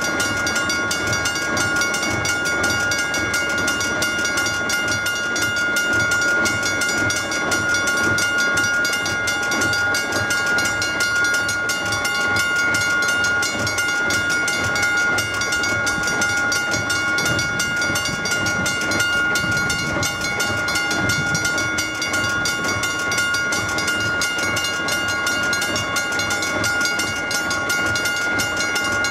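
Italian railway level-crossing warning bell ringing continuously at one unchanging pitch with the barriers down, signalling that a train is approaching.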